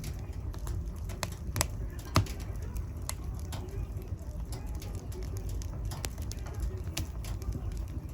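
Wood fire burning in a fireplace, crackling with scattered sharp pops over a low, steady rumble of flame.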